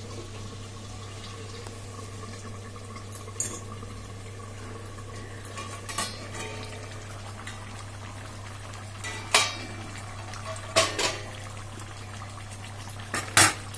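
Chicken in sauce simmering and bubbling in a kadai under a steel plate lid, a steady soft bubbling hiss. Scattered sharp metal clinks of the steel lid against the pan, louder from about nine seconds in, as the lid is lifted off.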